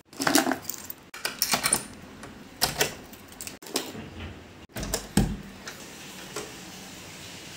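A metal keyring with keys being handled on a wooden tabletop: quick runs of jangling clicks and clatter. A dull thump comes a little after five seconds, then a faint steady hum.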